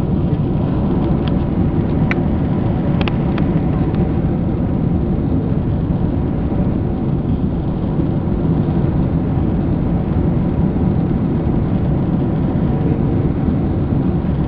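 Steady low roar of engine and airflow noise inside the cabin of a Boeing 767-300ER on approach, with a faint hum of a few steady tones. A few faint short clicks sound in the first few seconds.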